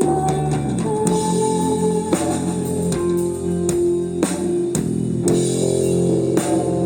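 Live psychedelic rock band playing an instrumental passage: electric guitar, bass guitar and drum kit, with regular drum hits.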